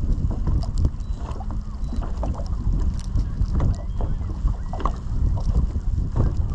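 Wind buffeting the microphone on an open fishing boat, a steady low rumble, with scattered small knocks and clicks on the boat throughout.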